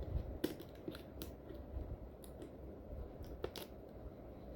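Packing tape being picked at and peeled off a cardboard toy box: scattered small clicks and scratchy ticks.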